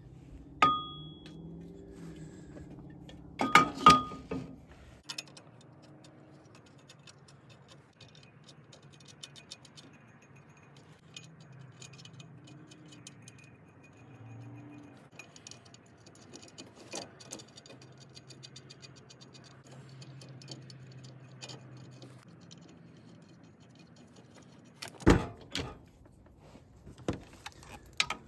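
Metal tools and parts clinking and clanking while being handled. A sharp clink rings briefly about half a second in, a cluster of louder clanks comes a few seconds in, light scattered clicks follow, and two more knocks come near the end.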